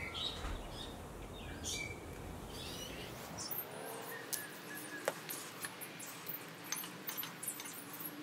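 Faint bird chirps over a low outdoor rumble; about halfway the rumble drops away and small clicks and scratches follow as wood glue is squeezed from a bottle and spread along the board edges.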